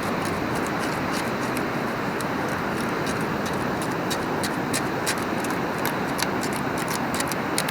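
Steady rush of surf with many quick, irregular clicks: sand, shell and grit rattling in a beach detecting scoop as it is shaken to sift out a target.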